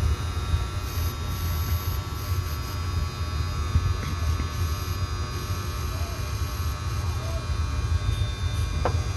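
A steady low mechanical hum with faint, steady whining tones above it.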